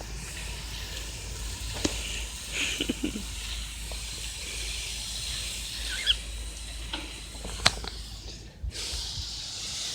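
Steady outdoor hiss with a few sharp clicks and some short, high chirps scattered through it.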